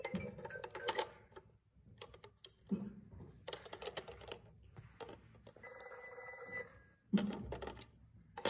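Plastic Peppa Pig toy telephone playing an electronic ringing tone through its small speaker, with plastic clicks and knocks as the handset is lifted and set back in its cradle. The loudest knock comes about seven seconds in.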